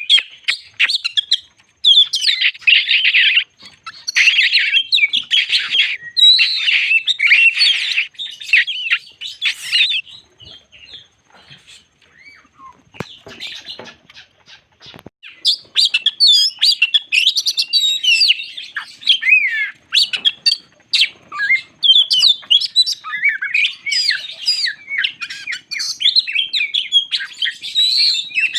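Oriental magpie-robin singing a long, varied song: harsh, buzzy phrases in the first ten seconds, a brief lull with a few sharp clicks, then quick whistles and trills from about the middle on. This is the full, excited song used as a trigger recording to provoke other magpie-robins.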